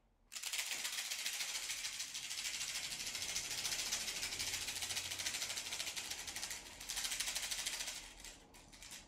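Rainstick held upright, its beads trickling down in a steady hissing rattle for about eight seconds, easing briefly and swelling again before it fades out. It is played as the sound of a tree's branches shivering.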